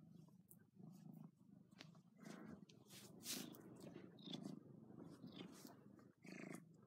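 Domestic cat purring faintly, the purr swelling and fading with each breath about once a second, with a few light rustles of fur and bedding under the petting hand.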